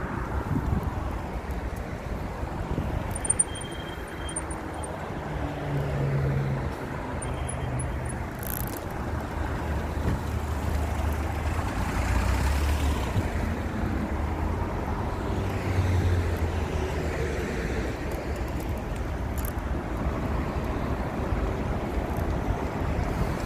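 Road traffic going by, with engine rumble swelling as several vehicles pass, over steady wind noise on the microphone.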